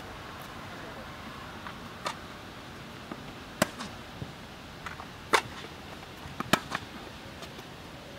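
Tennis rally on an indoor hard court: a string of sharp pops from rackets striking the ball and the ball bouncing, three of them much louder than the rest, over a steady background hiss.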